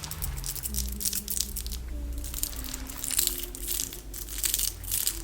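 A woman softly humming a slow tune, held notes stepping up and down in pitch, over close crackling and crinkling sounds.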